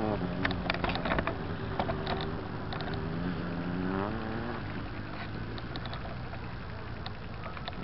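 Motorcycle engine revving on the ice, its pitch sliding down and rising again about four seconds in. A run of sharp clicks and rattles comes in the first second or so.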